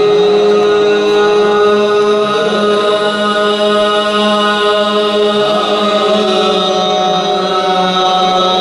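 Qawwali music: voices holding long sustained notes over a steady drone, with no drumming. The held notes change pitch a couple of times.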